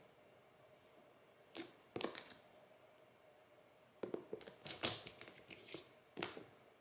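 A cat's claws and paws scratching and batting at a cardboard box with a clear plastic window, in short scratchy, crinkly bursts: two about one and a half to two seconds in, a busy flurry around four to five seconds, and one more near the end.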